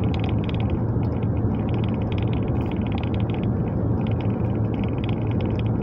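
Steady rumble of a vehicle in motion, with a constant low hum and no break.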